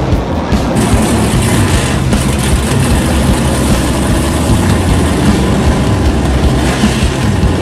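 Drag race car's engine idling loud and steady.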